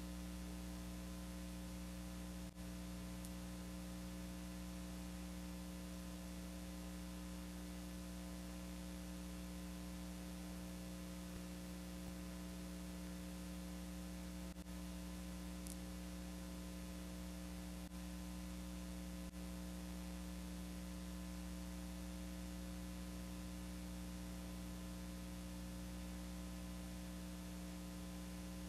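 Steady electrical mains hum with a layer of hiss, with no other sound. It dips out briefly a few times.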